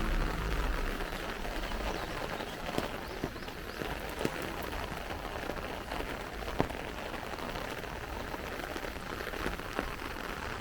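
Light rain falling on an umbrella: a steady patter with scattered sharper drop hits. A low rumble fades out in the first second or two.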